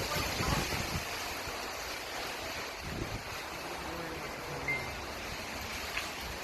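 Strong gusty wind rushing steadily and buffeting the microphone, with low rumbles in the first second and again about three seconds in.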